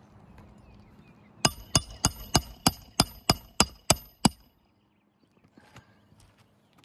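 A hammer striking a roofing nail about ten times in quick succession, roughly three blows a second, each with a short metallic ring.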